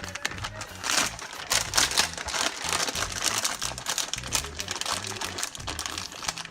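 Crinkling of a plastic bag of shredded cheese being handled, a dense irregular crackle, over background music.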